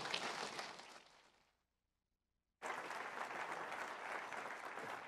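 Audience applauding. The applause fades out about a second and a half in, drops to dead silence for about a second, then cuts back in abruptly and carries on.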